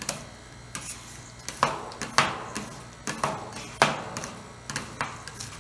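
Metal spatulas chopping ice cream mix on the chilled stainless steel pan of a fried (rolled) ice cream machine: irregular sharp clacks of metal on metal, the loudest a little over 2 s in and near 4 s in, over a low steady hum.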